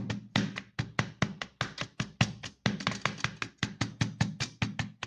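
A glass measuring cup tamping a biscuit-crumb cheesecake base down into a cake pan: rapid, uneven dull taps, about five or six a second.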